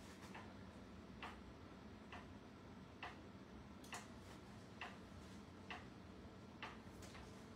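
Faint, evenly spaced clicks, a little under one a second, over near-silent room tone.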